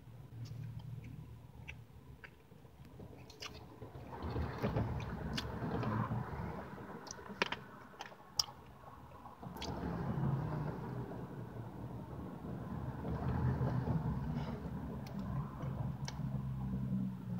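A person chewing food close to the microphone, with a few sharp, wet mouth clicks; near the end he bites into a soft bread roll topped with carrot slices.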